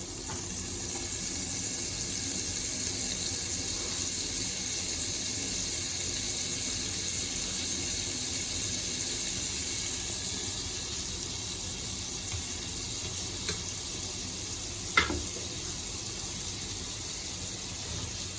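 Butter sizzling as it melts in a hot pan: a steady hiss that swells a little and then eases. A single sharp clink comes about fifteen seconds in.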